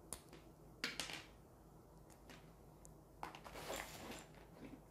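Test probe lead plugs being pushed into a UNI-T clamp meter's input jacks, with the leads handled on a wooden table: a few faint clicks and knocks in the first couple of seconds, then a longer rustle and scrape about three seconds in.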